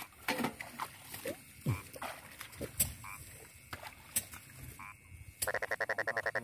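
A frog calling from the flooded rice paddy: a rapid trill of about a dozen pulses a second that lasts about a second near the end.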